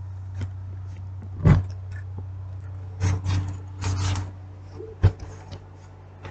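Steady low hum with a series of knocks and bumps on top: the loudest thump about a second and a half in, a cluster of knocks around three to four seconds in, and a sharp click about five seconds in.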